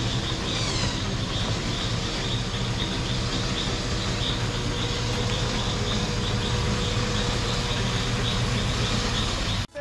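Off-road vehicle engine running steadily while driving, with a low rumble and road noise, and faint high chirps over it. The sound cuts off suddenly just before the end.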